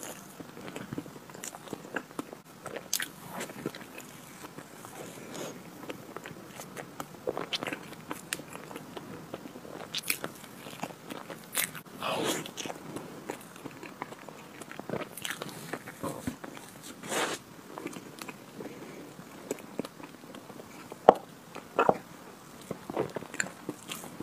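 Close-up sounds of a person eating chocolate ice cream cake: irregular wet bites, chewing and lip smacks, with a few louder ones toward the end.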